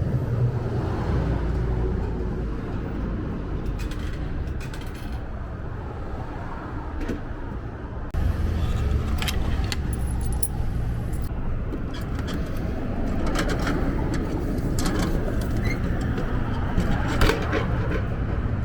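Steady low rumble of city street noise, with scattered light clicks and rattles of small objects being handled.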